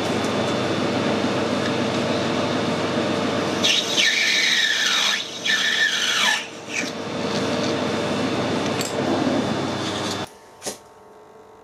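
A metal lathe is running while a parting tool cuts off a turned metal bush. For a few seconds in the middle the cut gives off a high squeal that slides down in pitch. The running noise cuts off suddenly near the end.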